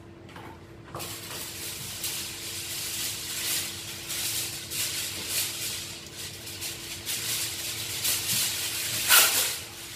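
A sheet of kitchen wrap pulled out of its box and handled, rustling and crackling, with a louder crackle near the end.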